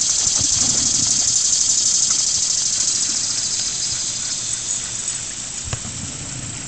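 Steady splashing of running water from a small garden koi pond waterfall, growing fainter toward the end. A few light splashes and knocks near the start as a springer spaniel scrambles out of the water onto the rocks.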